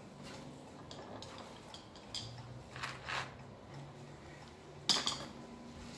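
A few faint, irregular clicks and taps over a low, steady background hum.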